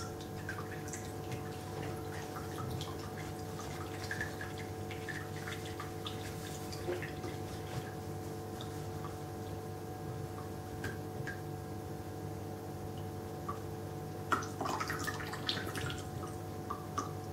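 Excess water draining out of the bottom of a freshly top-watered orchid pot into a plastic bowl: scattered single drips, with a brief run of drips and trickle near the end. A steady low hum lies underneath.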